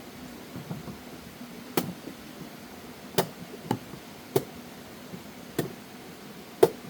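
A series of about six sharp knocks at uneven intervals, the last one the loudest, over a faint steady hum.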